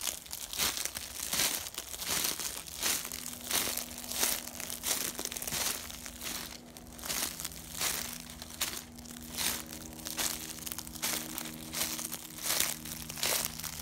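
Footsteps crunching through dry leaves and underbrush at a walking pace, about two steps a second. A faint steady low hum sits underneath from about two and a half seconds in.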